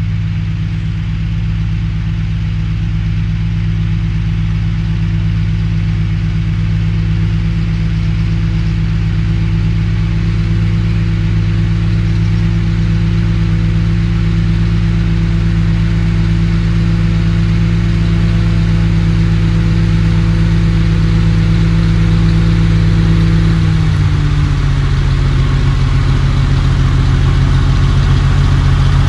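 Oliver 1850 tractor engine running steadily as the tractor approaches, growing gradually louder; about 23 seconds in its pitch drops a step and stays lower.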